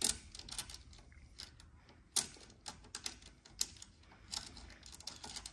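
Irregular small clicks and taps of hand-fitted hardware: washers and nylon nuts going onto M6 socket cap screws through a plastic tailgate clip, a few clicks a second, loudest at the start and about two seconds in.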